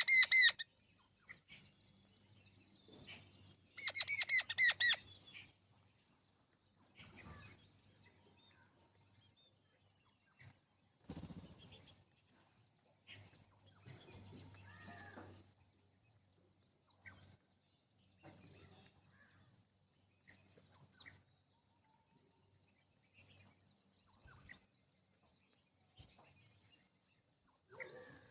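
Sparrows chirping: a loud rapid burst of high chirps at the start and another about four seconds in, then fainter scattered chirps.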